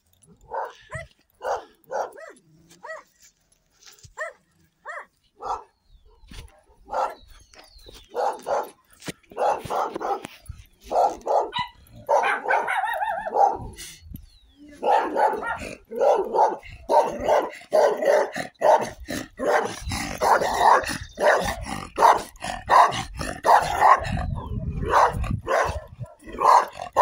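Dogs barking, at first single barks about a second apart, then faster and overlapping from about eight seconds in.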